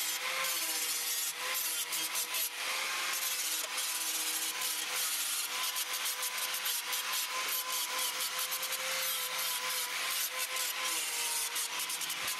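Angle grinder grinding galvanised steel down to bare metal ahead of welding: a steady whine over a continuous rasping grind with crackles as the disc bites.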